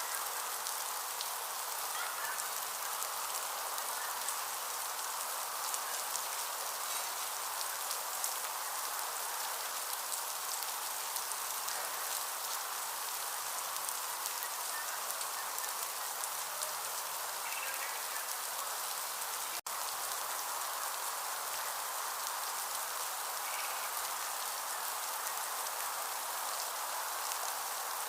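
Steady heavy rain falling, a dense hiss of drops with fine close drop hits; no thunder. The sound cuts out for an instant about twenty seconds in.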